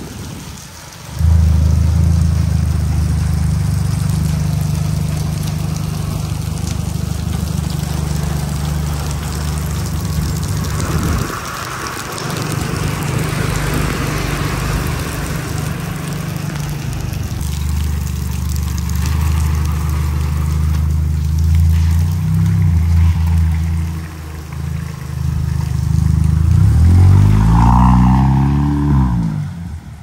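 Mahindra Thar driving on a wet road: the engine runs steadily over a hiss of tyres on wet tarmac. Near the end the engine pitch rises and then falls. The sound breaks off abruptly a couple of times where shots change.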